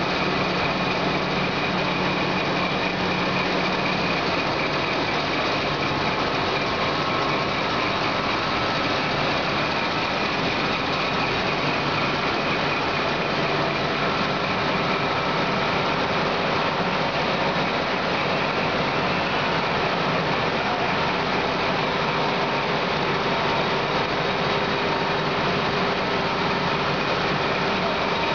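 Perfect 1000 high-production textile carding machine running: a steady, even mechanical whir and rushing hiss with a few faint steady hum tones, unchanging throughout.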